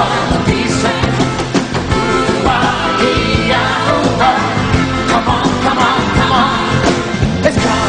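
Pop-rock song: a singer over a band backing, running steadily throughout.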